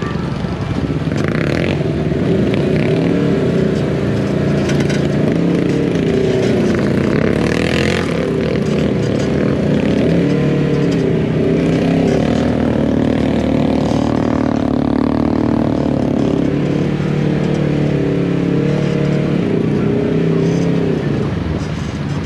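Side-by-side UTV engine running under way, heard from on board, its pitch wavering with the throttle, with a few knocks from the rough trail.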